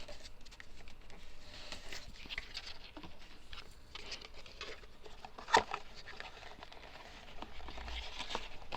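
Cardboard being handled, folded and creased by hand: scratchy rustling and small clicks, with one sharp crack about five and a half seconds in.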